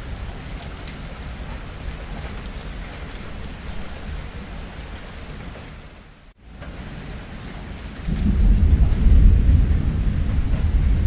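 Steady rain falling, with the sound dipping out for a moment just past halfway. About eight seconds in a deep rumble of thunder comes in and rolls on loudly.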